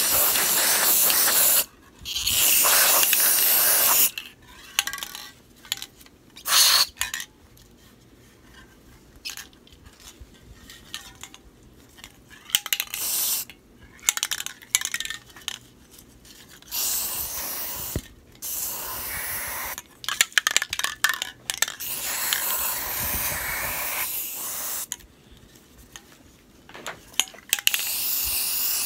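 Aerosol spray paint can hissing in several bursts of a few seconds each, with a longer run of spraying in the second half. Between the bursts the can's mixing ball clicks and rattles as the can is shaken.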